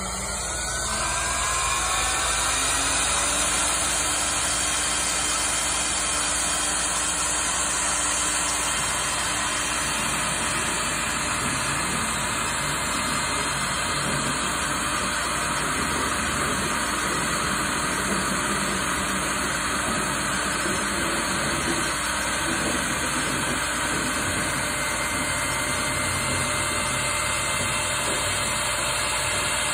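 CNC router spindle spinning up with a rising whine in the first couple of seconds, then running steadily at high speed under a constant hiss, with the head travelling through a program over an empty table without cutting.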